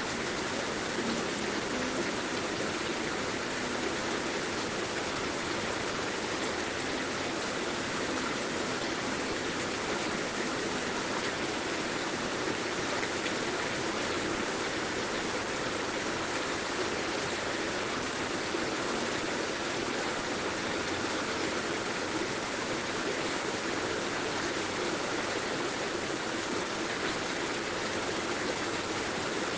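Heavy rain falling, a steady, dense wash of sound with no breaks or changes.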